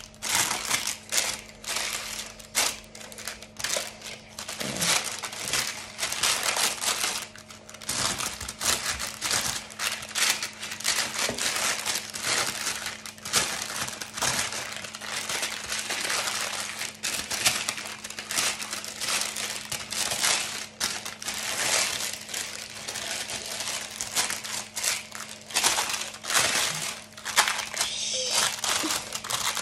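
Baking parchment paper being crumpled and crinkled by hand to line a loaf tin: a long, irregular crackling rustle. A faint steady hum runs underneath.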